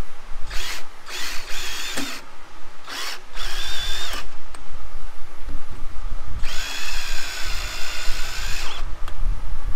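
DeWalt cordless drill driving a screw back into a welder's steel side panel: several short trigger bursts in the first few seconds, then a longer steady run of about two seconds in the second half.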